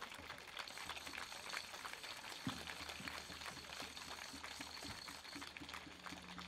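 Crowd applauding, faint, a dense patter of many separate hand claps.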